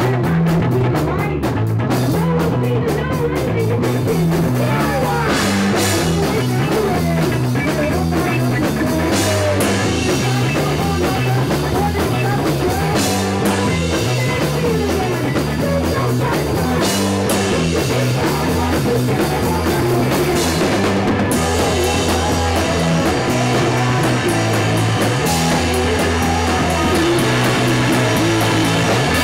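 Rock band playing an instrumental passage on drum kit, guitar and bass, with a bass line stepping through low notes.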